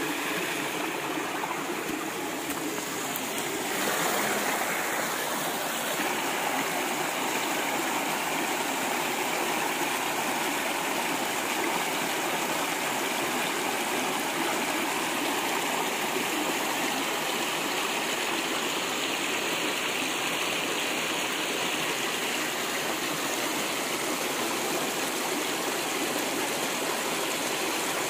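Shallow stream running over rocks: a steady rush of water that gets a little louder about four seconds in.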